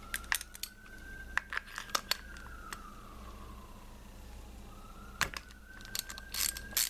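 Scattered metal clicks and rattles of a spark plug socket, extension and ratchet being worked on a Honda D16 engine's spark plug, busier near the end. Under them a faint thin squeak rises and falls twice.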